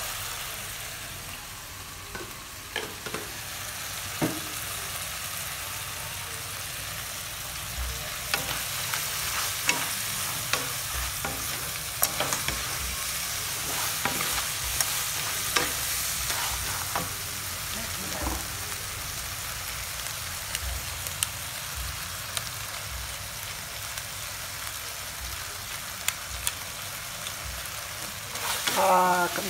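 Crab pieces sizzling in sauce in a hot wok while a wooden spatula stirs and scrapes them, with frequent short knocks of the spatula against the pan.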